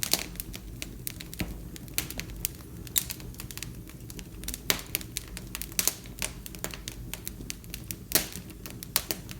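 Wood fire crackling in a fireplace: irregular sharp pops and snaps over a low, steady flame rumble. A few louder pops stand out, the loudest about eight seconds in.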